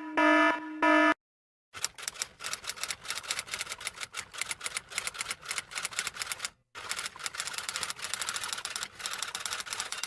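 Rapid typewriter keystrokes, a fast run of clicks lasting about eight seconds with a short break partway through. It opens with the last second of a short electronic jingle of repeated tones.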